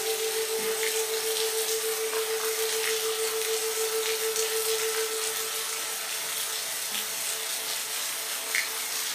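Steady rain hiss with scattered faint drop ticks, under a sustained, gently pulsing musical tone that fades out a little past halfway.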